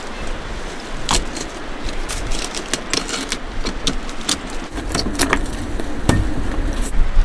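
Irregular sharp clicks and knocks of a knife working on a cutting board as a fish is cut up for sashimi, over wind rumbling on the microphone.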